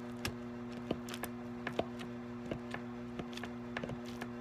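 A fork stabbing into a raw thawed steak again and again, its tines tapping against the surface beneath in irregular sharp clicks as the meat is poked full of holes for the marinade. A steady electrical hum runs underneath.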